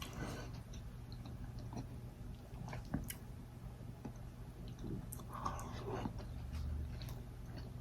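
Close-up chewing and biting of food, with scattered wet mouth clicks; the sharpest click comes about three seconds in.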